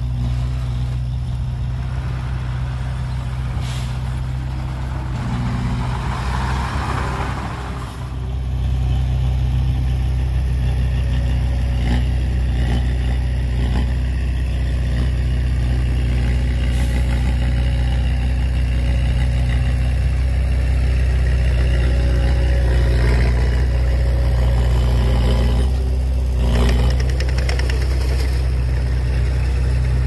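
Heavy diesel engine running steadily with a deep drone. It dips for a moment about eight seconds in, then pulls harder and a little louder.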